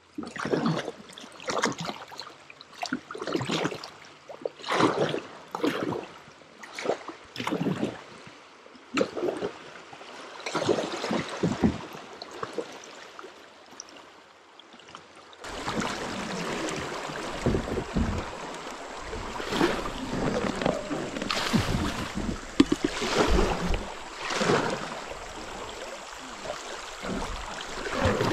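Kayak paddle strokes dipping and splashing in a steady rhythm, about one stroke a second, with flowing river water. About halfway through, a steady low rumble joins in under the strokes.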